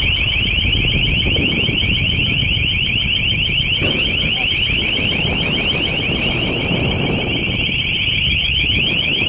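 A ship's electronic alarm sounding without a break: a fast train of short, high rising sweeps repeating several times a second. Beneath it runs a steady low rumble of wind, sea and engine.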